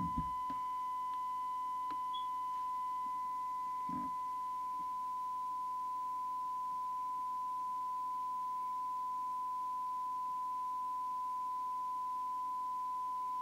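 Steady single-pitched test tone from the Uniden Uniace 100 CB radio's speaker: the signal generator's modulation tone recovered by the receiver from a strong S9 test signal. A faint knock about four seconds in.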